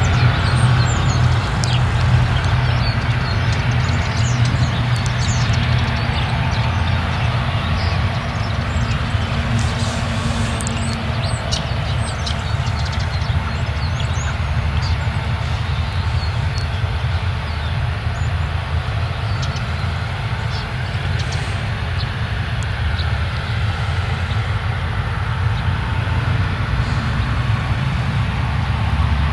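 Claas Lexion combine harvester running steadily as it works across a grain field, a continuous low diesel engine drone with machinery noise over it. Faint high chirps sound above it now and then.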